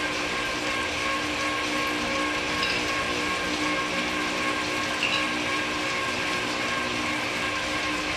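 Wahoo Kickr smart trainer running as the rider pedals: a steady whine of several held tones over a constant hum.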